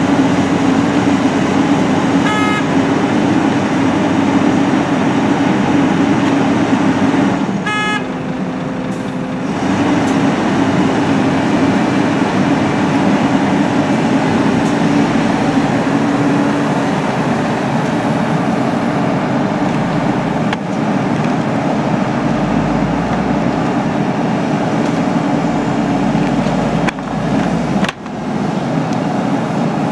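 Cat 320CL tracked excavator's diesel engine and hydraulics running steadily under load while loading a dump truck with frozen earth. There are two short horn toots in the first ten seconds, and a couple of sharp knocks near the end.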